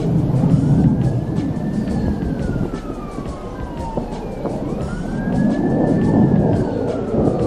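A wailing siren, its pitch rising and falling slowly in two cycles of about four seconds each.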